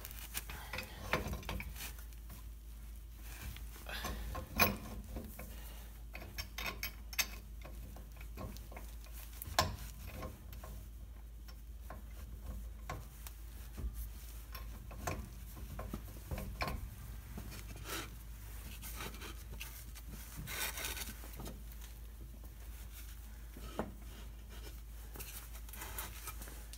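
Scattered metal clinks, scrapes and knocks of a large pipe wrench being fitted onto the pinion yoke of a Jeep's Dana 30 front differential to hold it from turning. The sharpest knocks come about four and a half and nine and a half seconds in.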